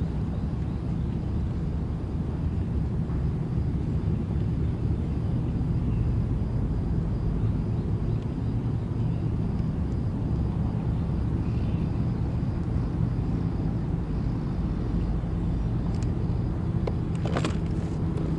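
A steady low motor hum with a rumble underneath, with a few light clicks near the end.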